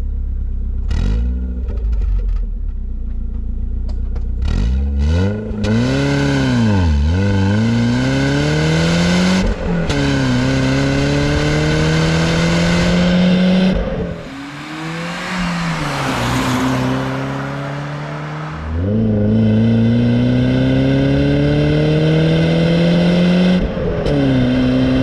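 BMW E36 316i Compact's 1.6-litre M43 four-cylinder heard at its standard factory exhaust tip. It runs low at first, then accelerates through the gears, the pitch rising in each gear and dropping at each of several gear changes. The note is modest and a bit cute rather than droning.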